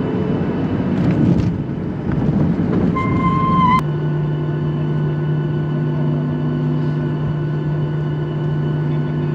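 Jet airliner heard from inside the cabin while taxiing: rumbling engine and cabin noise, with a short steady high tone about three seconds in. Near four seconds it switches abruptly to a steadier engine hum with a constant low drone.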